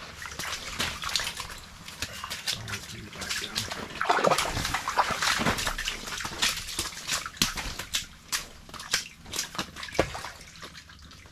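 Water sloshing and splashing in an ice-fishing hole, with scattered clicks and knocks from fishing rods and reels being handled. The splashing is loudest about four to six seconds in.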